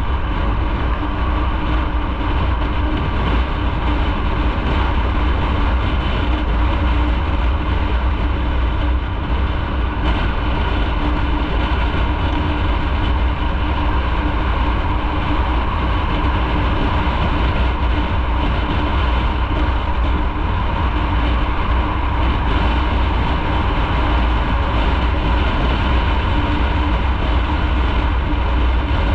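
Onboard sound of a motorcycle cruising at a steady speed: an even engine drone over a constant low rumble.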